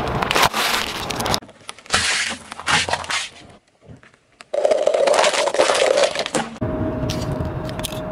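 Car tyre slowly crushing objects on asphalt: crunching with sharp cracks and snaps, broken up by abrupt cuts between clips, with a brief lull near the middle. A steady tone sounds under the noise in the last part.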